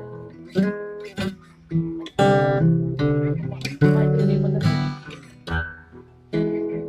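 Acoustic guitar strummed chord by chord, each chord ringing and fading before the next, at an uneven pace, about ten in all. Picked up close on a BOYA M1 lavalier microphone.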